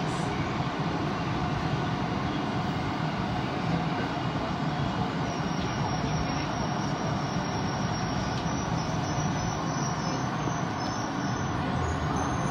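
Tokyo Metro Ginza Line 1000-series subway train running, heard from inside the front of the car: a steady rumble of wheels on rail and running gear.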